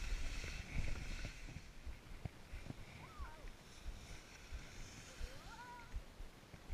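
Skis sliding and scraping over packed snow with wind rumbling on the camera's microphone, loudest for the first second or so, then easing off.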